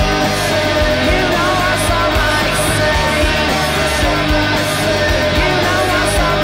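Rock music with electric guitar and a drum beat.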